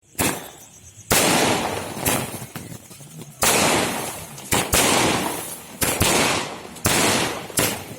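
Firecrackers bursting: a series of sharp, loud bangs at irregular intervals, roughly one a second and sometimes two close together, each followed by a long echoing decay.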